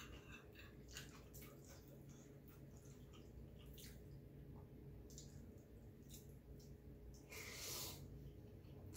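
Faint wet chewing and mouth smacks from someone eating fettuccine in marinara sauce, with scattered small clicks. Near the end comes one louder slurp as a forkful of noodles is drawn into the mouth.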